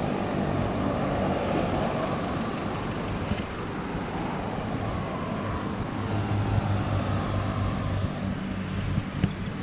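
A Kia Bongo 3 driving on the road: a steady engine drone under tyre and road noise, with a few light knocks near the end.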